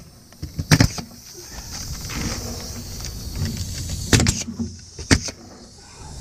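Ridgid pneumatic framing nailer driving nails into plywood roof decking. It gives five sharp shots: a quick pair near the start, another quick pair about four seconds in, and a single shot about a second after that.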